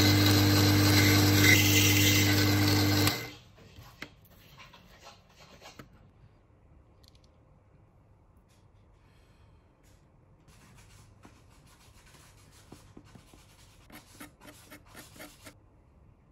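A small power tool's motor runs steadily at a fixed pitch and cuts off about three seconds in. Faint, quick strokes of a small metal file rasping a laminated bentwood chair leg follow, thickest in the last few seconds.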